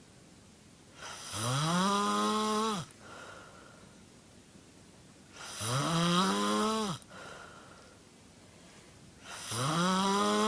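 A person snoring: three long snores about four seconds apart, each a drone whose pitch rises at its start and then holds for over a second.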